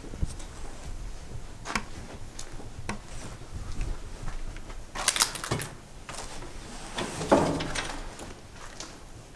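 Footsteps crunching over fallen paint chips and debris on a floor, with scattered clicks and crunches and a louder crunching thump about seven seconds in.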